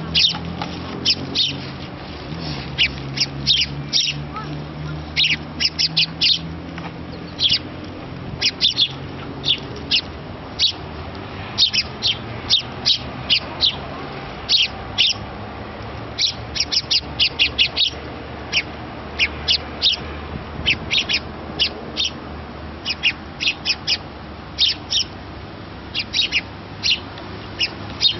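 House sparrows chirping over and over, short sharp chirps singly and in quick runs of three or four. The calls come from a young sparrow crouched and begging while an adult male feeds it beak to beak.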